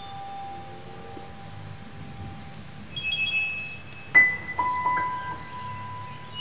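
Sparse background music of single ringing, bell-like notes, with a sharp struck note about four seconds in and a long held note after it.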